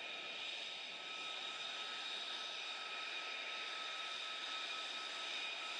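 An F-35 fighter's jet engine running at taxi power: a steady rushing noise with several high, steady whistling tones over it.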